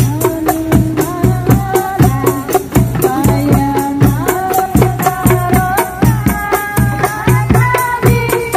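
Hadroh ensemble: hand-struck rebana frame drums, jingles and a mallet-struck bass drum keep a quick, steady beat, with voices singing a sholawat melody over it.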